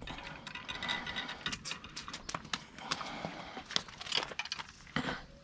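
Irregular small clicks and knocks, several a second with no steady rhythm, from hands working fishing tackle and a freshly landed crucian carp.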